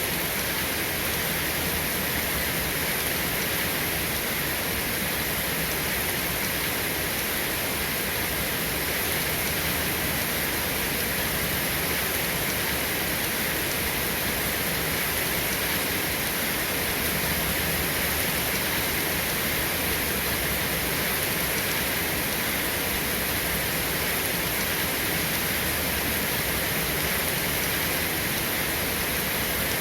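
Steady rain falling, an even hiss with no thunder and no change in strength.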